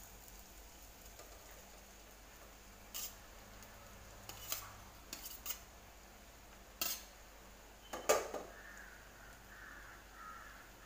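A spoon knocking and scraping against a kadai as cooked rice is added and mixed in with the potatoes: about six short, sharp clinks, spread out, the loudest late on.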